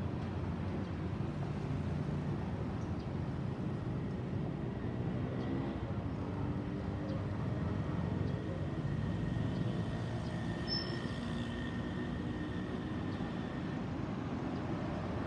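Airbus A320neo's CFM LEAP-1A turbofan engines passing over and moving away: a steady, distant low rumble, with a faint high whine over it in the second half.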